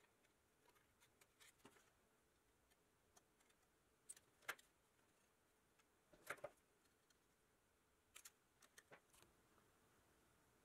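Quiet scissor snips through thin copper sheet and small clicks as the cut metal piece is handled and bent. The sounds are scattered, sharp ticks with quiet between them, and the two sharpest come about halfway through.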